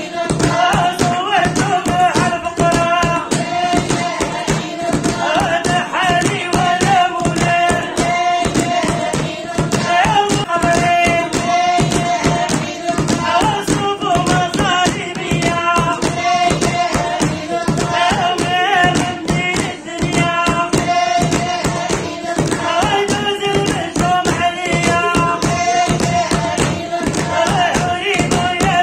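A woman singing a Moroccan prophetic praise song (madih nabawi), accompanied by hand claps in a steady, quick rhythm.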